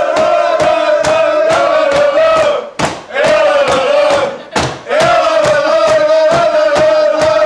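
Group of people chanting together on long held notes, over a fast, even pounding of hands on the wooden bar counter, about three or four beats a second. The chant breaks off briefly twice.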